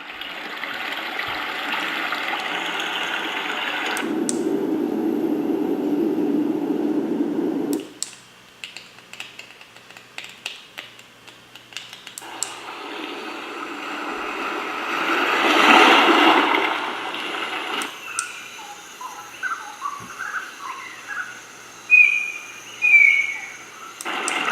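Portable relaxation-sounds speaker stepping through its built-in nature tracks: a steady rush of rain or running water, then crackling like a campfire, an ocean wave swelling and falling back around the middle, and birdsong near the end.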